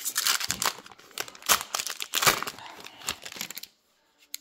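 Wrapper of a hockey trading-card pack being torn open and crinkled by hand, a dense crackle that stops abruptly shortly before the end.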